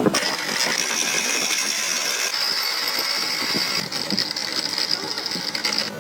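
A power tool running steadily with a high-pitched whine that shifts slightly about two seconds in and dips near the four-second mark.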